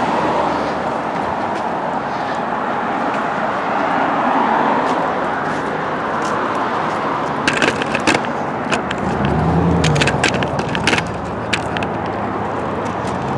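Steady street traffic noise, with a cluster of sharp clicks a little past halfway and another a few seconds later.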